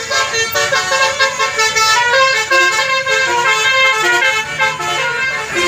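Basuri telolet bus air horn playing a quick tune of short notes at several pitches, one after another.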